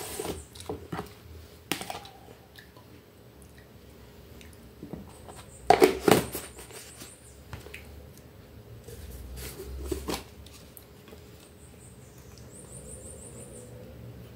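Tabletop handling sounds: a plastic tub of powdered milk shaken and tapped over a glass bowl of fruit salad, with scattered light knocks and a louder clatter about six seconds in. Near the end a spoon scrapes hard Nutella out of its jar.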